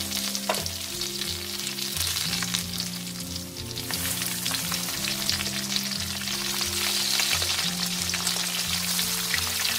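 Whole giant freshwater prawns sizzling as they are laid into hot rendered pork fat in a wok, with sliced ginger and coriander root frying alongside. The crackle thins for a moment, then picks up again about four seconds in.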